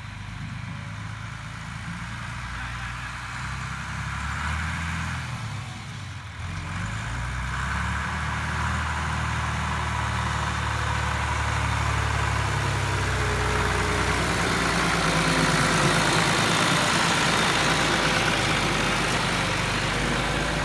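John Deere tractor engine running as the tractor drives closer and passes, growing louder as it nears.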